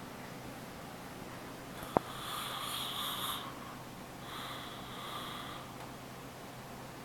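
A man snoring in his sleep: two long, noisy snores of about a second each, roughly two seconds apart. A sharp click just before the first snore is the loudest sound.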